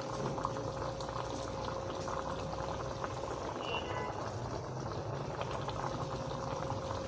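Spiced red gravy with paneer pieces boiling in a frying pan: a steady, even bubbling with fine popping, a faint steady hum underneath.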